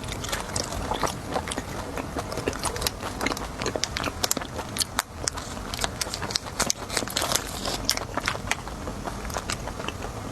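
A crunchy snack being bitten and chewed close to the microphone: a dense, irregular run of sharp crunches and crackles.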